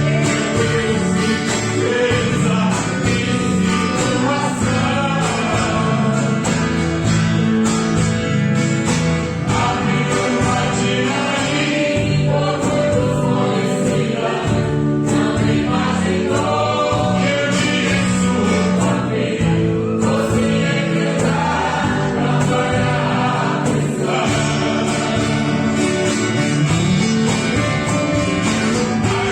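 Two men singing a Portuguese gospel hymn together, with guitar accompaniment.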